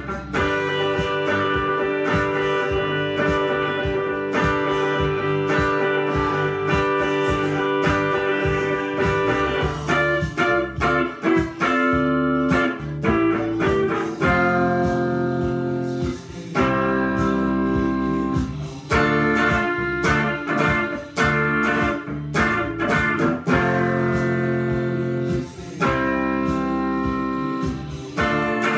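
Telecaster-style electric guitar being played: long ringing chords for about the first ten seconds, then a stretch of shorter picked notes and chords, each left to ring.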